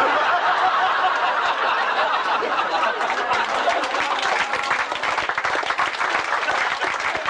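A crowd laughing and applauding at the punchline of a joke; it starts abruptly and keeps a steady level throughout.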